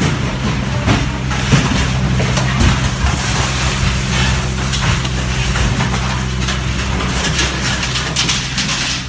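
Mini excavator's diesel engine running steadily under load, with irregular crunching and cracking of building material being broken.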